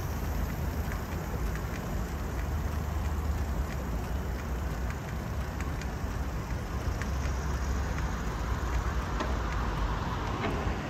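Steady wind rumble on the microphone with the tyre noise of a bicycle rolling along a paved cycle lane, and scattered faint ticks.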